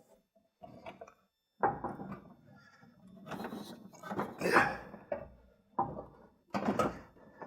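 A steel aftermarket front bumper being handled and fitted onto the truck's front end: irregular metal clanks, knocks and scraping as it is shifted into position. The first clank comes sharply about a second and a half in, and the loudest stretch is near the middle.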